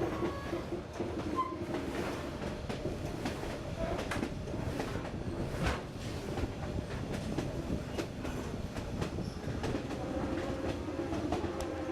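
Passenger train running along the track: a steady rumble with irregular clacks as the wheels pass over rail joints.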